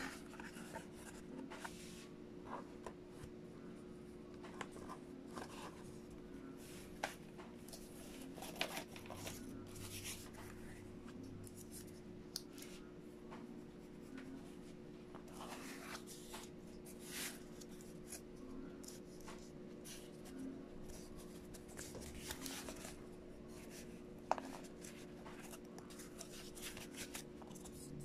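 Cardboard pieces being handled, rubbed and shifted, giving faint scattered scrapes and rustles.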